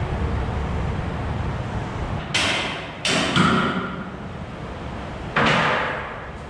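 Heavy metal clanks and bangs from work on a concrete boom pump's steel delivery pipe, echoing in a large metal shop. One bang comes about two seconds in, two more close together about a second later, and a fourth near the end, over a low rumble that fades in the first two seconds.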